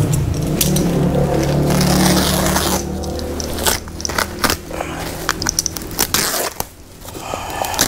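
Box cutter slicing through the plastic sack wrapping a bale, with crunching and scraping as the blade tears the sack open. Sharp, separate rips come about four seconds in and near the end.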